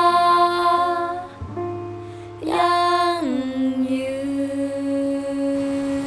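A slow song with a voice holding long sung notes over soft accompaniment. The melody drops to a lower note about three seconds in and holds there.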